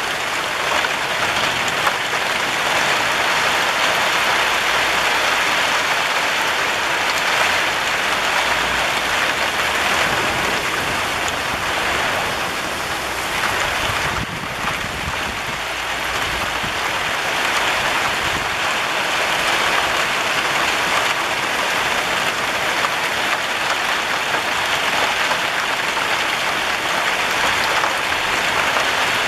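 Steady rain falling on clay tile roofs, a dense even hiss. A low rumble sits beneath it for several seconds in the middle.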